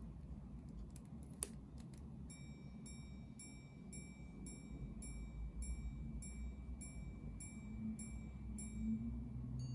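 Chronoswiss quarter repeater wristwatch (Répétition à quarts) sounding the time: a few light clicks as the repeater is set off, then its hammer striking the gong about twelve times, a little under two strikes a second, for 12 o'clock. Right at the end the high-low double strikes for the quarters begin.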